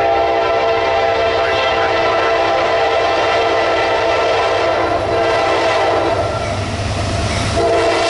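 Norfolk Southern diesel locomotive's air horn blowing one long blast over the low rumble of the approaching freight train, the standard grade-crossing warning. The horn cuts off briefly about seven and a half seconds in and starts a second long blast just before the end.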